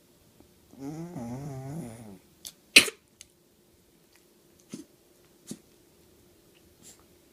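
Sleeping pug giving a drawn-out, wavering, groan-like breath, then one sharp, loud sneeze a little under three seconds in. A few short, quieter snorts follow.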